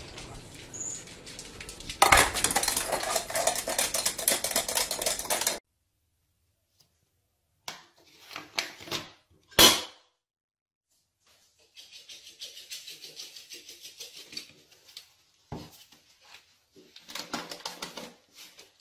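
Household clatter of dishes and cutlery in separate bursts: a loud dense rattling for a few seconds near the start, a few short clinks with one sharp hit around the middle, then a lighter, longer rattling with a knock later on.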